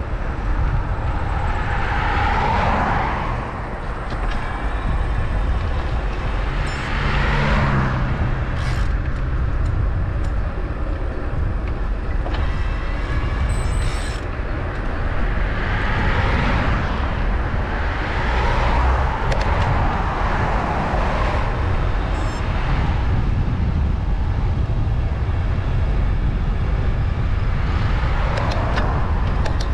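Road traffic heard on the move: a steady low rumble with vehicles passing about five times, each one swelling and fading away.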